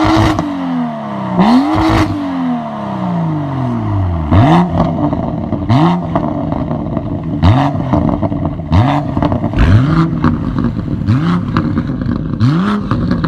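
BMW M2 (F87) turbocharged straight-six revved while standing, through an MGmotorsport aftermarket exhaust. Two longer revs fall away slowly, then come quick throttle blips about every one and a half seconds, each with a sharp crack.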